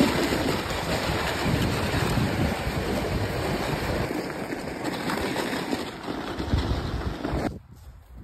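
Steady rushing, scraping noise of a wooden sled sliding over snow as a horse tows it, with wind on the microphone. It cuts off suddenly near the end.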